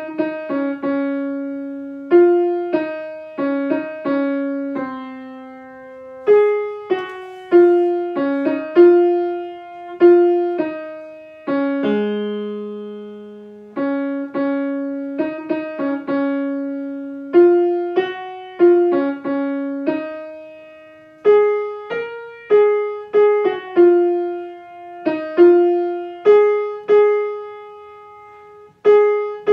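Kawai grand piano playing a song's vocal melody line one note at a time, each note struck and left to fade, with a longer low note held about halfway through.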